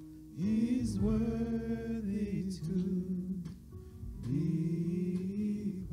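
Slow gospel singing: a voice holds long notes, sliding up into a new phrase about half a second in and again about four seconds in, over steady held chords.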